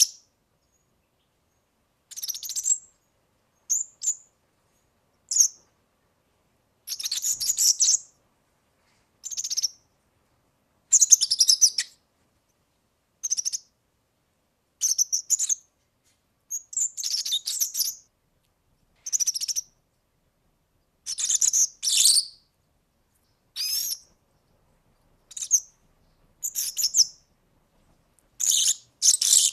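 European serin singing: about fifteen short phrases of its high, fast jingling song, each half a second to a second and a half long, separated by silent gaps.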